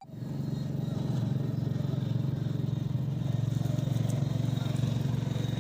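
An engine running steadily at an even speed, with a low, even throb.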